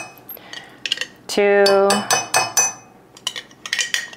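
A spoon clinking and tapping against a glass jar and a glass measuring cup as yogurt is scooped out and knocked off into the cup: a scatter of light, sharp clinks.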